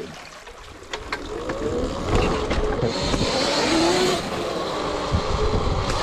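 Electric dirt bike riding a rough trail: the motor's whine rises and falls in pitch with the throttle over steady tyre and ground noise, with a brief hiss about three seconds in.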